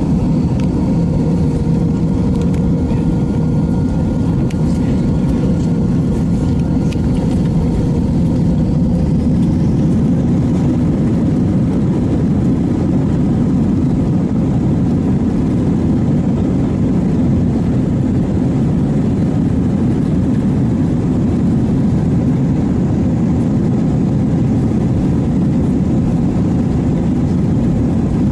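Airliner's jet engines at takeoff power, heard inside the passenger cabin as a loud, steady rush during the takeoff roll and climb-out. A thin steady whine fades away about eight seconds in.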